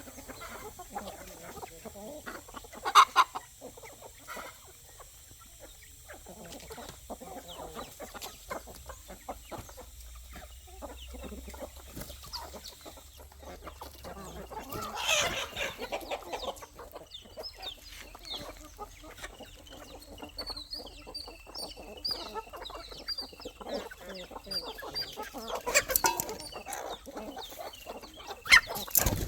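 A flock of chickens clucking continuously, with scattered short taps. A few louder calls stand out near the start, in the middle and near the end. Short high peeps run through the later part.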